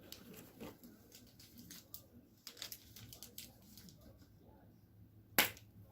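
Light clicks and rustles of small hardware being handled, with one sharp click near the end.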